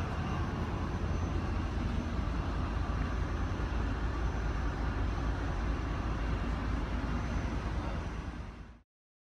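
Steady low rumble of a GE ET44C4 diesel locomotive's GEVO-12 engine idling at a standstill, heard inside the cab, with a faint high whine over it. The sound fades out quickly about eight and a half seconds in.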